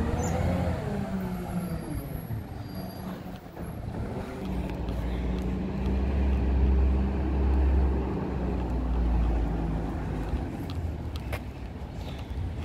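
Garbage truck's diesel engine running, a low rumble that swells and is strongest for a few seconds in the middle.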